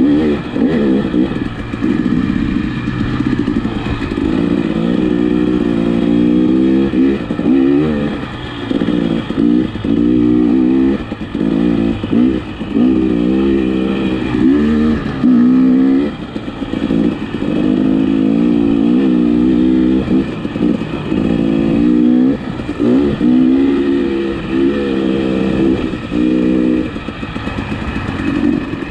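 2021 KTM 300 XC-W's single-cylinder two-stroke engine under way off-road, its revs rising and falling again and again with brief drops as the throttle is worked.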